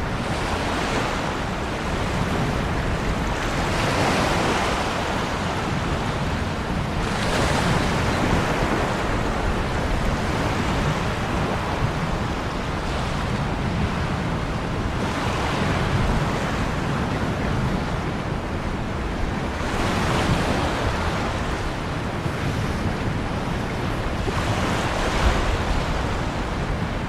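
Ocean surf: waves rushing and washing in swells every few seconds over a steady low rumble.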